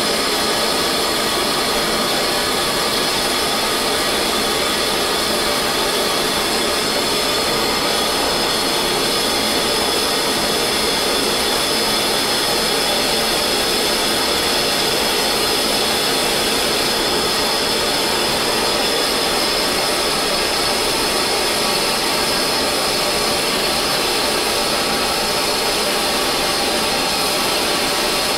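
Hand-held gas torch burning with a steady, even hiss, its flame heating steel bushings for silver soldering while the solder has not yet melted.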